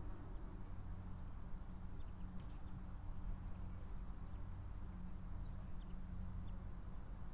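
Outdoor ambience: a few faint bird chirps and a thin high whistle over a steady low rumble.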